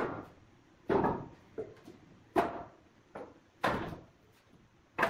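Old weathered wooden posts and offcuts knocking against the concrete floor and each other as they are picked up and set down, a sharp knock about once a second, some louder than others.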